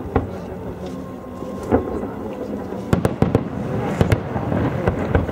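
Aerial firework shells bursting: a series of sharp bangs, with a quick cluster of several about three seconds in and two more about a second later.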